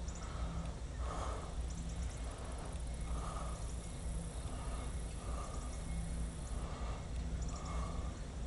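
Diesel locomotives of a loaded coal train running slowly at restricting speed: a steady low engine rumble, with a fainter sound repeating about once a second.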